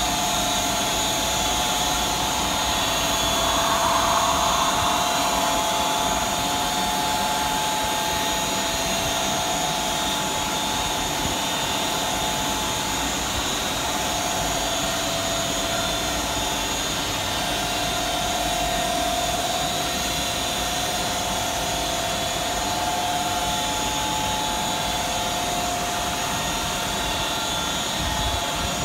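Automatic rollover car wash machine running, a steady whirring rush with a few held whining tones, swelling slightly about four seconds in.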